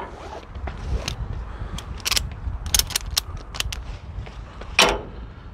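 Ratchet tie-down strap being fed back out of its released ratchet: irregular clicks and rattles from the mechanism as the webbing is pulled through, with one louder clank just before the end.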